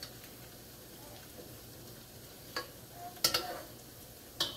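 Bread slices frying in ghee in a wok, a faint steady sizzle, with a spatula knocking and scraping against the pan three times in the second half as the pieces are turned.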